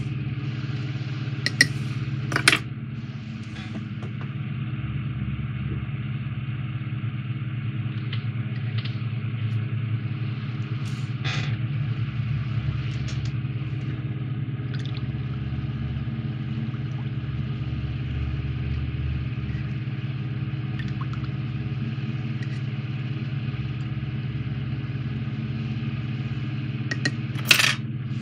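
Steady low hum, with a few short sharp clicks and taps from tweezers and small hobby items being handled, the loudest about two seconds in and near the end.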